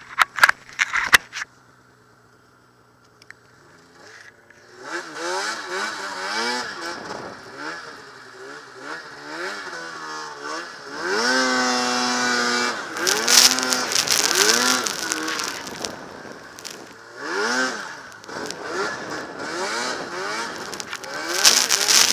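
Arctic Cat M8 snowmobile's two-stroke engine: a few knocks at the start, a low idle, then from about four seconds in it is revved again and again, its pitch climbing and falling with the throttle, loudest near the middle, as the sled ploughs through deep loose snow.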